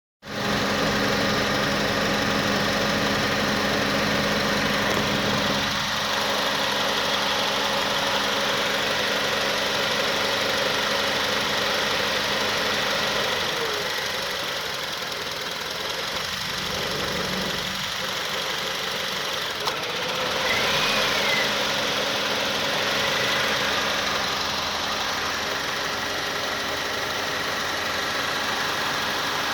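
2006 Honda Accord engine idling roughly with the air conditioning on. About halfway through the idle note shifts and a few seconds later shifts back, as the A/C compressor cycles: the compressor's load chokes the engine until it almost stalls, then the ECU recovers.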